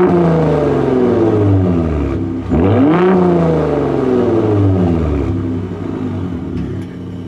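Gen 3 Ford Raptor's 3.5-litre twin-turbo EcoBoost V6 free-revved twice through its active-valve exhaust in Baja mode, heard at the tailpipe. The first rev falls back from its peak at the start; the second climbs sharply about two and a half seconds in and sinks slowly back to a steady idle.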